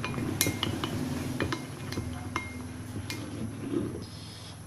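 A spoon stirring white glue and water in a glass bowl, clinking and scraping against the glass in irregular sharp clinks. These grow sparser and quieter toward the end.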